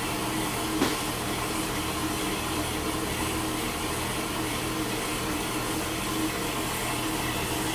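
Metal-cutting bandsaw running steadily through a 4.5-inch bar of steel, an even whirring hiss with a steady hum.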